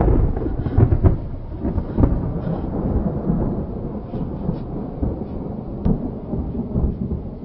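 Thunder rumbling with rain, with crackles on top of a deep roll. It slowly fades away.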